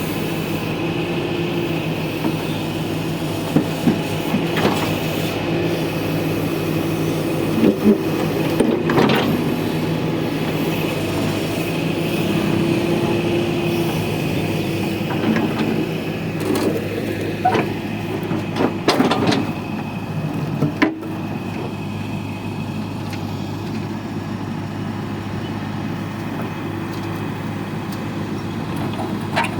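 TATA TH86 backhoe loader's diesel engine running under working load, its pitch rising and falling, with several sharp knocks and clanks along the way.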